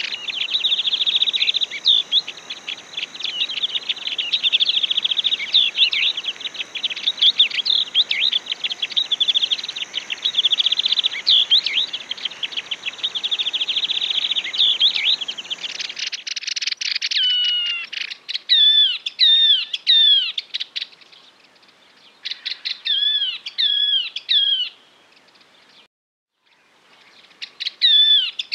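Yellow-eyed babbler song played as a recorded lure call: about half the time a fast, dense chattering trill, then repeated phrases of clear whistled notes that slide downward in pitch, broken by short pauses.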